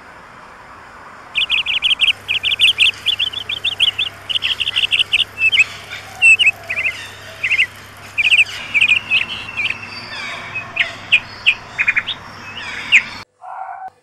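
Red-breasted parakeets calling: a dense run of short, sharp, high chirps in quick clusters that starts about a second in and cuts off abruptly near the end.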